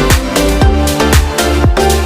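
Electronic dance music with a steady kick-drum beat and a repeating synth line.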